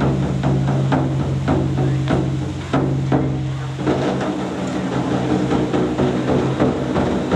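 Taiko drums played in a performance: an irregular run of sharp drum strikes over a steady low sustained tone.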